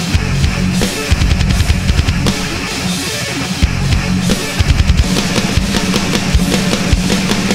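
Instrumental progressive metal playing with distorted guitars and a drum kit. The kick drum and hi-hat drive a busy syncopated groove with snare accents, which breaks near the end into a fast run of triplet strokes under accented cymbal hits.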